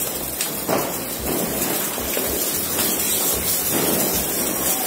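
Handheld sparklers burning with a steady fizzing crackle of sparks.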